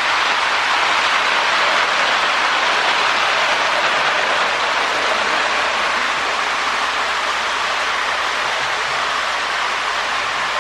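Lionel postwar 2056 Hudson toy steam locomotive running steadily on its track, a constant rushing whir of motor, gears and wheels on the metal rails.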